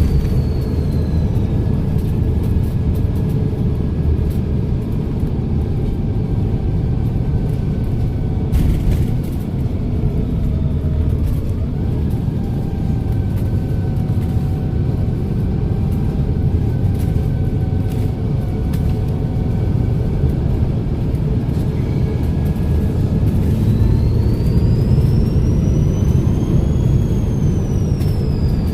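Volvo B7RLE bus's turbocharged diesel engine running with a low rumble and a high turbo whistle. The whistle falls away at the start, then rises steeply in pitch about three-quarters of the way in and eases down again near the end. There is a sharp knock about a third of the way in.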